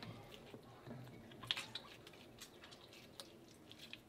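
Faint wet squelches and soft clicks of hands kneading and folding a hot ball of freshly stretched mozzarella curd. The sharpest squelch comes about one and a half seconds in.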